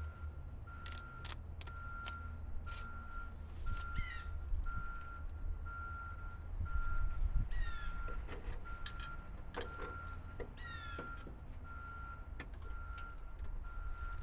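Vehicle backup alarm beeping steadily, just under two beeps a second, over the low rumble of an engine running. Scattered clicks and clanks of metal handling sound in between.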